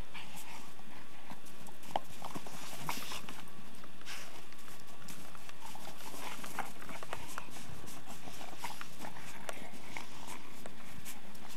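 A dog worrying a Jolly Ball in snow: irregular crunches and clicks of paws and jaws in the snow and against the ball, scattered unevenly, over a steady background hiss.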